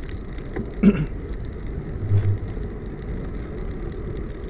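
Steady rumble of a bicycle rolling over a rough road surface, with a sharp bump about a second in and a shorter one about two seconds in.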